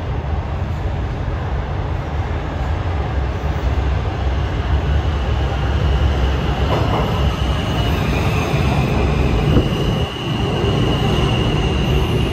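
R160 subway train running on the rails with a heavy low rumble, and a high steady squeal of wheels on the track that comes in about eight seconds in.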